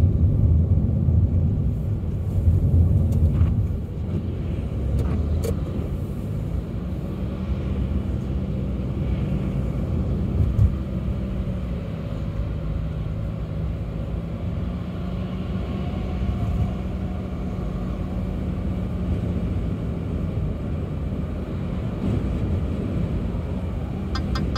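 Car engine and road rumble heard from inside the cabin while driving, a steady low drone that is louder for the first few seconds and then settles.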